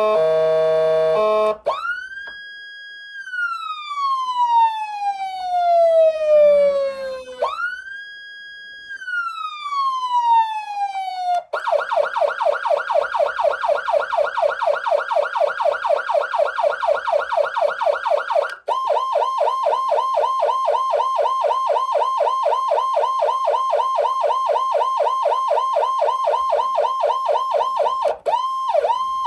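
Whelen 295SLSA6 electronic siren amplifier stepping through its siren tones. It opens with a brief steady multi-note tone, then a tone that rises, holds and slowly winds down, twice, like a mechanical siren coasting. About twelve seconds in it switches to a fast, rapidly repeating up-and-down yelp, then to a quicker, narrower warble, and near the end to slower sweeps.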